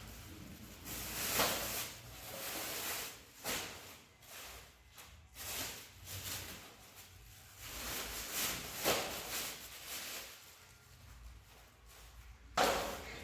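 Irregular household handling noises: a string of short rustles and knocks at uneven intervals, with a sharper, louder one near the end.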